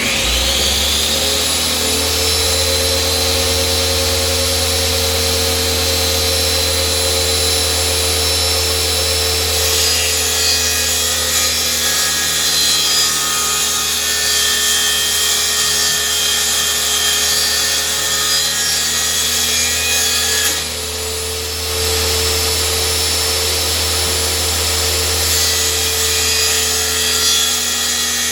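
Power saw spinning up with a rising whine, then running steadily while cutting a wood sheet into 30-inch puzzle-board pieces. The level dips briefly about three quarters of the way through, then the cutting resumes.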